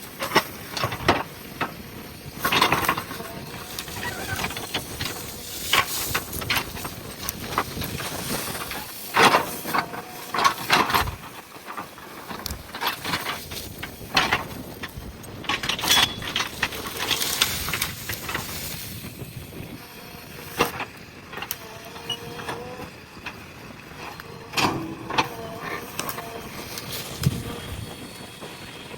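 JCB backhoe loader at work clearing brush and soil: irregular cracks, knocks and scrapes over a noisy, hissing background.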